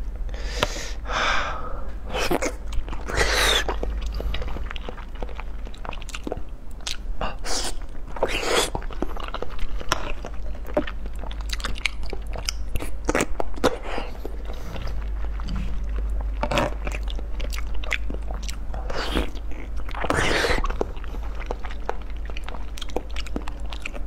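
Close-miked eating: a person biting into and chewing soft food, with wet mouth clicks and smacks coming in irregular bursts.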